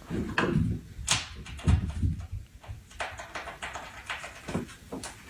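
Scattered knocks and thumps, the sharpest about a second in, from something moving about behind a closed bathroom door.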